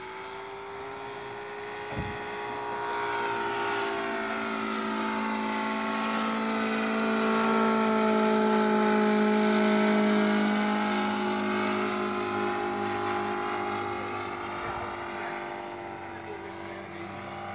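Radio-controlled Stearman biplane's engine running in flight, droning steadily as the model passes. It grows louder toward the middle, then fades as it flies away. A brief thump about two seconds in.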